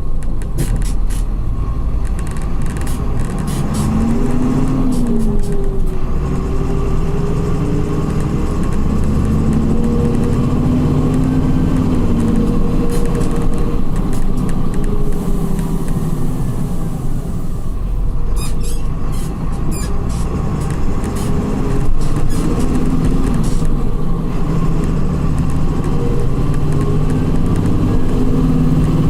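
Volkswagen 17.230 EOD bus's diesel engine and ZF gearbox under way, heard from the driver's seat. The engine note climbs under acceleration and drops back several times, as at gear changes, with scattered clicks and rattles over it.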